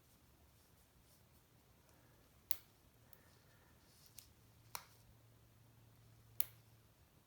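Four sharp, separate clicks at uneven intervals from a vintage Cadola manual-wind watch movement being wound: the click catching on the ratchet wheel as the mainspring takes up, the sign that the reassembled winding works.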